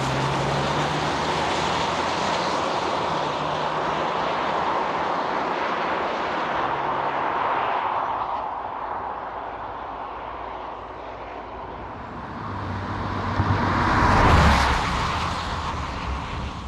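Alfa Romeo Stelvio Veloce's 2.0-litre turbo-petrol four-cylinder driving, with the engine and road noise steady at first. It eases off in the middle, then swells to a loud peak about fourteen seconds in and fades again.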